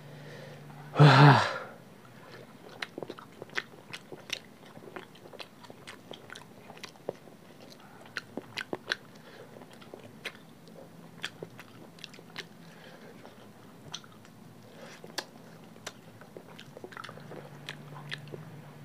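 Close-miked eating sounds of two people eating curry and rice by hand: wet chewing and lip smacks heard as many scattered clicks. There is one short, loud voice-like sound about a second in.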